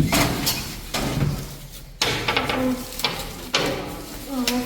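Metal parts of a new kitchen stove being handled, knocking and clanking: about six sharp strikes with a short ring after them, spaced roughly half a second to a second apart.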